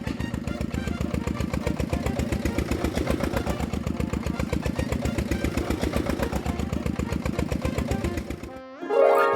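Engine sound effect of a heavy construction vehicle running with a fast, even chug, which cuts off about eight and a half seconds in.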